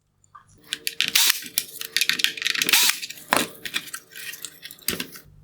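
Phillips screwdriver working small screws out of the plastic headlight housing: a busy run of clicks, taps and scrapes of metal on plastic, stopping about five seconds in.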